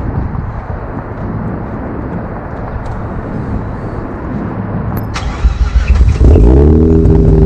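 Mazda RX-8's two-rotor rotary engine being started through an Agency Power catless exhaust: a click, about a second of cranking, then it catches about six seconds in and runs up to a loud, steady fast idle.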